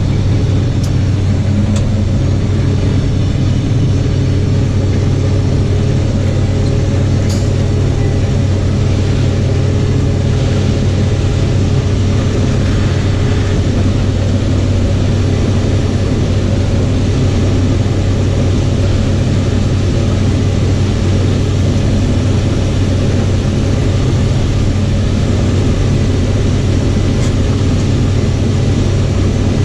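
John Deere combine harvester running steadily while shelling corn, a constant low engine and threshing drone.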